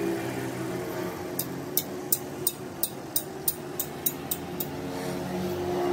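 Car engine idling steadily, most likely the rebuilt Toyota 16-valve 5A EFI four-cylinder. Through the middle there is a run of about ten sharp high clicks, about three a second.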